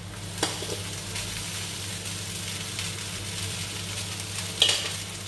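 Sambal paste frying in a hot wok, a steady sizzle as cooked rice is poured in on top of it. A short knock sounds just after the start and a sharper metallic clatter near the end.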